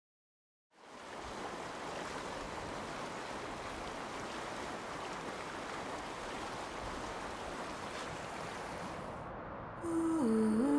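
Steady, even rushing noise of outdoor ambience that starts after a moment of silence and stops near the end, where music enters with a low hummed tone that slides in pitch.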